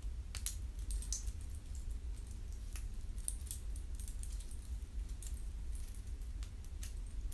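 Gold Rolex watch's metal link bracelet clicking and jingling in the hands as it is handled and slipped onto a wrist: scattered, irregular small metallic clicks over a steady low hum.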